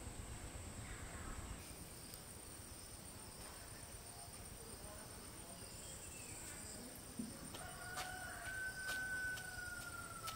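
A rooster crows once, faintly, about eight seconds in, ending on a long held note that drops in pitch as it ends.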